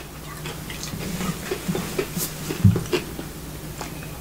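A person chewing a mouthful of food with the mouth closed: soft, scattered wet clicks over a steady low hum, with one short low knock about two and a half seconds in.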